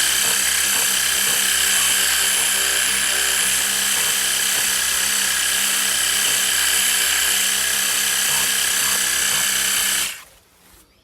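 Worx WG625E cordless pressure washer running, its battery pump motor giving a steady whine over the hiss of the water jet, then cutting off near the end.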